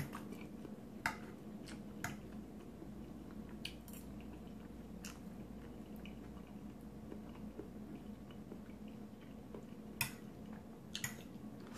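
Metal fork clinking and scraping against a ceramic plate as food is picked up, a scatter of sharp clicks with the clearest about a second in, about five seconds in and about ten seconds in, over soft chewing and a faint steady room hum.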